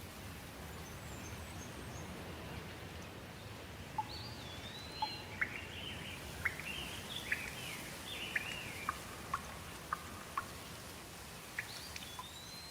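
Steady rain with water dripping in sharp single drops, while a bird sings a run of chirps and whistled notes from about four seconds in until about ten seconds in.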